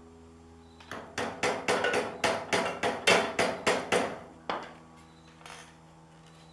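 Hammer blows driving a screwdriver into the metal casing of an old tine shaft oil seal in a tiller's transmission housing. About a dozen sharp metallic strikes come in quick succession, about three a second, starting a second in and stopping after about four seconds.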